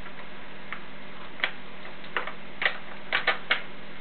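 Irregular light clicks and taps as a cardboard box of pancake mix is shaken out over a mixing bowl, about seven in a few seconds.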